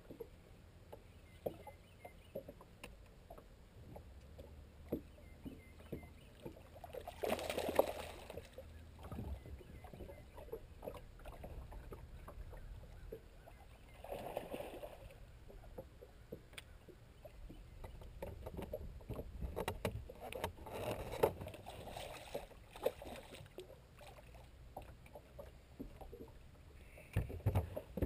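Small waves lapping and slapping against a fiberglass bass boat's hull while a hooked bass is played on rod and reel, with a few louder splashes at intervals.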